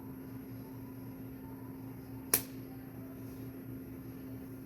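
Steady low electrical or fan-like room hum, with one sharp click a little past the middle.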